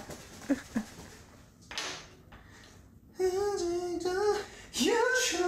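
A voice humming a slow tune in long held notes, starting about three seconds in and rising in pitch near the end, after a short soft rustle.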